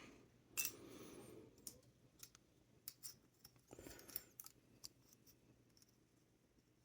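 Faint, scattered small clicks and rustles of a typewriter ribbon and its clip being handled and pushed onto a ribbon spool, with a short flurry of clicks about four seconds in.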